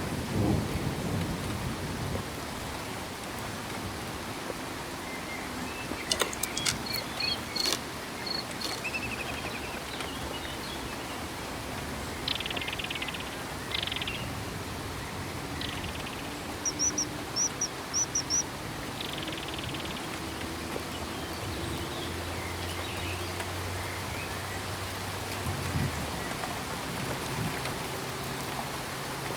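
Steady rain falling, with small birds calling now and then over it, among them a run of five quick high chirps. A low rumble, likely the tail of thunder, fades out at the start.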